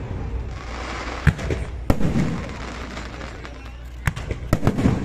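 Fireworks display: sharp bangs of shells bursting overhead, a few in the first two seconds and a quick cluster near the end, with crackling and hiss between them.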